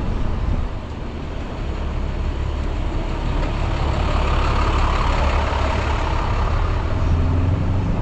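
City street traffic heard from a moving bicycle, with a heavy vehicle's engine running close by over a steady low rumble. A swell of noise builds toward the middle, and a low engine drone comes in near the end.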